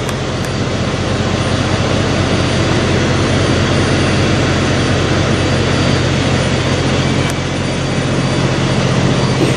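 Kenworth W990 semi truck's diesel engine idling, a steady low drone under an even rush of noise, heard up close at the front of the truck.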